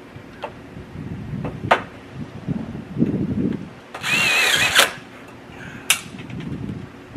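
Handheld power drill running for about a second, its motor whine wavering in pitch, with a few sharp clicks and knocks before and after.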